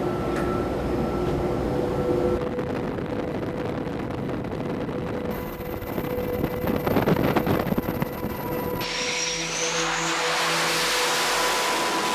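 Steady engine and machinery noise with a constant hum, changing character at cuts. About three-quarters in it gives way to a jet fighter's engines running at full power, a rushing roar with a faint rising whine.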